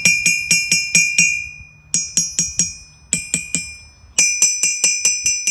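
Hammer striking a 53-pound Hay Budden anvil in four quick runs of blows, about four or five blows a second, each blow leaving a clear, high ringing tone. The last and longest run is still going at the end.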